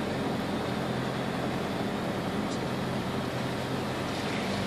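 Land Rover Defender's engine heard from inside the cab, running steadily under light throttle as the vehicle pulls slowly along a gravel track, with a low hum and tyre and cabin rumble.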